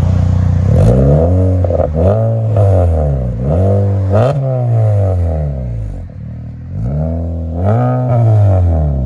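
A 2017 Honda Civic's 2.0-litre four-cylinder engine is free-revved about six times from idle, each rev rising and falling back. It is heard at the tailpipes, through an exhaust with the middle resonator removed and an aftermarket DTM dual-tip muffler.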